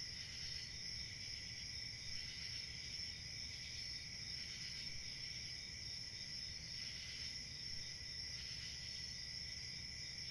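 Faint, steady chorus of crickets and other insects, several high shrill tones that swell and ease every second or so, over a low background rumble.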